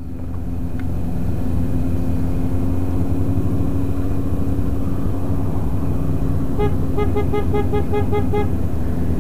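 Motorcycle engine running steadily at cruising speed with wind rush, picked up by a helmet-mounted camera. About six and a half seconds in, a quick run of short beeps, about six a second, lasts roughly two seconds.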